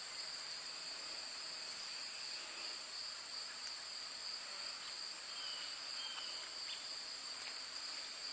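Steady chorus of crickets trilling in two high bands, with a couple of faint short chirps a few seconds in.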